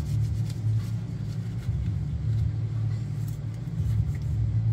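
Box fan running with a steady low hum, with a few faint light clicks from plastic wiring-harness connectors being handled and wiped.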